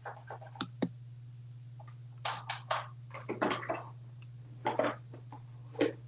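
An African grey parrot moving about at a plastic water tray: a few light clicks and knocks, then several short scuffling, splashy noises.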